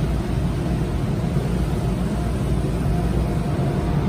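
Automatic tunnel car wash heard from inside the car: a steady rush of water spraying and streaming over the windshield and body, over a deep, even rumble.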